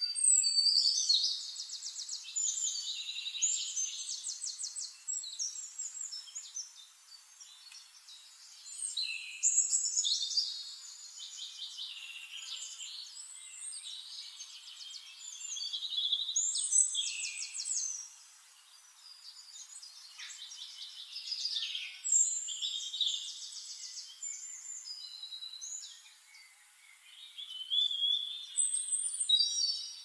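Songbird singing: about five phrases, each a few seconds long, made of rapid high trills and short whistles, with quieter gaps between them.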